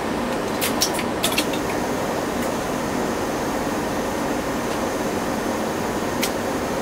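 Scale-model traction lift's DC motor and worm-gear sheave drive running steadily as the car travels. A few sharp clicks about a second in, and one more near the end.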